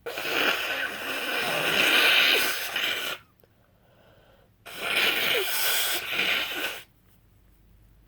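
A woman with a head cold blowing her congested nose into a tissue twice: a long blow of about three seconds, then after a short pause a second blow of about two seconds.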